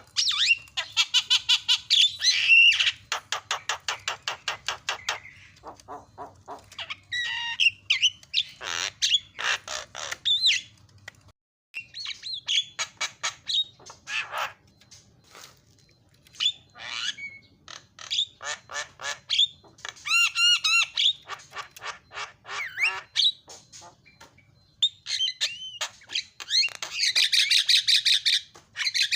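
Javan myna singing a long, varied song: rapid runs of repeated chattering notes, whistled glides and harsh squawks, broken by short pauses. The loudest bursts of chatter come at the start and again near the end.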